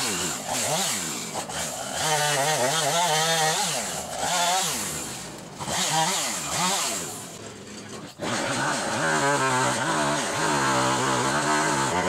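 Husqvarna chainsaw cutting limbs of a fallen tree, revving up and down again and again with short drops toward idle. The audio is fast-forwarded along with the footage.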